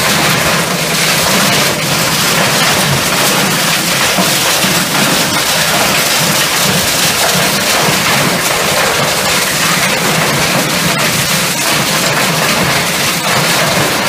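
A 32 by 24 inch hammer mill running loaded, smashing small electronics fed into its hopper. It makes a loud, continuous dense crackle and clatter of fragments over a steady machine hum.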